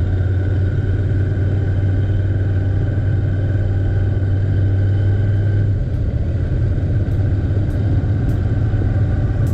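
Royal Enfield Interceptor 650 parallel-twin engine running steadily, its low note shifting about six seconds in.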